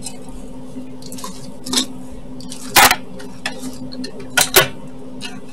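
Metal clinks and knocks from a tower CPU cooler and its mounting parts being handled. There is a loud clatter near the middle and two more knocks about a second and a half later, over a steady hum.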